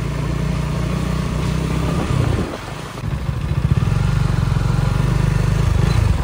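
Motorcycle engine running under way at low revs; the throttle eases off briefly a couple of seconds in, then the engine pulls harder with a pulsing beat.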